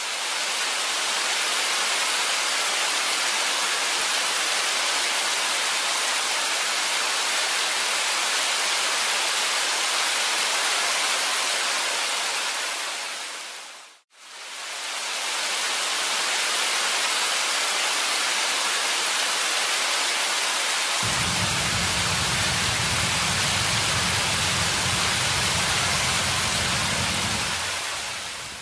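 Steady heavy rain hiss that fades out about halfway and fades back in. About two-thirds of the way in, a low rumble joins it.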